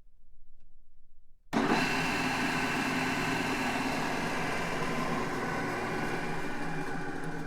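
Large drill press running: a loud, steady motor whir with several steady tones that cuts in abruptly about a second and a half in, after a faint low rumble, and eases off slightly near the end.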